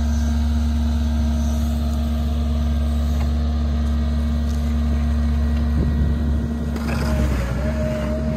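Large farm tractor's diesel engine running at a steady speed, a constant low drone, with a short spell of added mechanical noise about seven seconds in.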